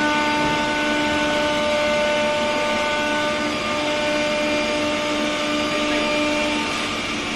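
Multi-head wood CNC router running its spindles and cutting grooves into MDF panels: several steady high whines over a constant hiss. A few of the whine tones drop out near the end and the sound eases slightly.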